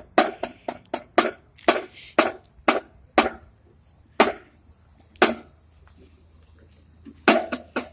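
Marching drumline sticks clicking out a rhythm in a break of the drum cadence: sharp wooden clicks, about two a second at first, then two single clicks and a pause, then a quick flurry near the end.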